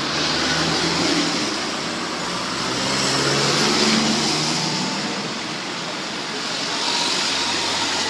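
Street traffic: cars driving past close by, the sound of engines and tyres swelling and fading as each one goes by, three passes in all.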